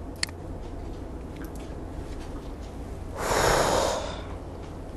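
A person's single sharp exhale through the nose, close to the microphone, about three seconds in and lasting under a second. A faint click comes near the start, over a low steady hum.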